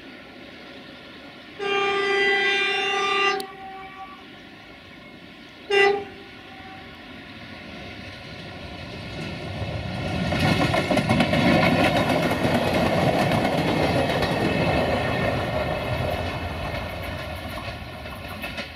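Diesel multiple unit sounding its horn: one blast of about two seconds, then a short toot a few seconds later. It then runs past, its engine and wheels on the rails building to a loud rumble that fades as it goes by.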